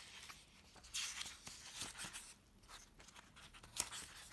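Pages of a paperback manga volume being turned and handled: soft paper rustling and brushing, with a short sharp tick near the end.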